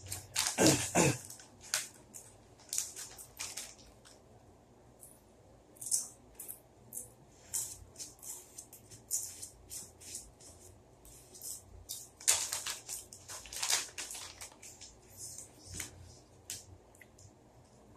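Crinkling of a plastic-foil bag of Haunted Ghost Pepper chips as a hand rummages in it: quick, irregular crackles, louder in a burst about half a second in and again about twelve to fourteen seconds in.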